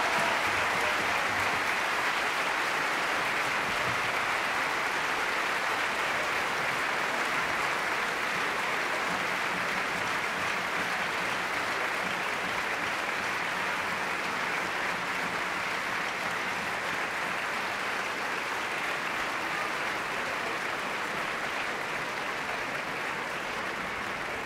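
Large theatre audience applauding steadily in a dense, even clapping that eases slightly toward the end.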